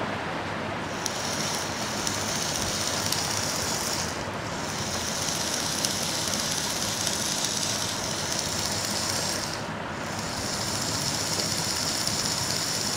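Small BO gear motor (a 100 RPM L-type DC motor with a plastic gearbox) running on a 9-volt battery: a steady whir from the little motor and its gears, turning freely now that the jammed gearbox has been cleared, though one gear still has a broken tooth. The whir starts about a second in and cuts out briefly twice, about four and ten seconds in.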